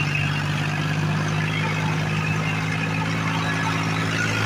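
Diesel tractor engine running at a steady pitch, heard from the driver's seat, while the tractor drags a soil-leveling blade through sandy field soil.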